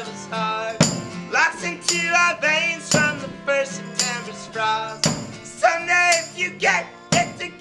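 Indie rock band playing a song unplugged, with no amplification: acoustic instruments and voices holding notes, over a beat struck about once a second.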